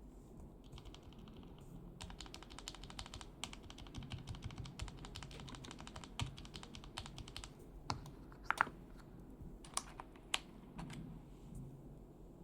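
Mechanical keyboard fitted with Gateron Milky Yellow linear switches being typed on: a fast run of keystrokes, then a few slower, louder single key presses about eight to ten seconds in.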